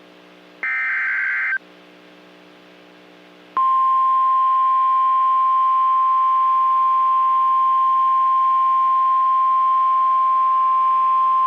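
NOAA Weather Radio alert signal: a last one-second burst of shrill digital data tones (the SAME header), then about three and a half seconds in the steady single-pitch 1050 Hz warning alarm tone starts and holds, announcing a new warning.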